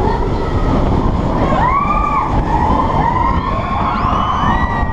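Roller coaster train running on its track, a steady loud rumble with wind noise. Over it, riders' voices rise and fall in several drawn-out screams or yells, about two seconds in, again around three seconds and near the end.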